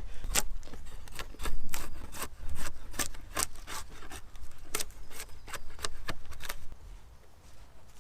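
Hand saw, likely the folding saw, cutting through a wooden pole with quick back-and-forth strokes at about two to three a second, stopping shortly before the end.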